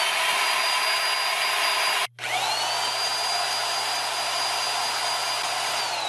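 Electric drill spinning over a small 3D printed single-cylinder gas engine: the drill whine rises as it spins up, cuts off about two seconds in, spins up again and starts to wind down near the end. Under it the engine pops faintly as it fires weakly on butane blown into the intake, without running on its own.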